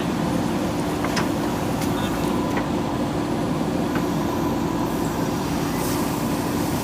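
JCB backhoe loader's diesel engine running at a steady pitch, with a few light clicks or knocks over it.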